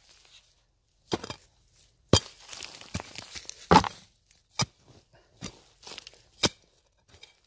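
Hand digging tool chopping into stony soil, about six sharp strikes spaced roughly a second apart, with scraping of earth between some of them.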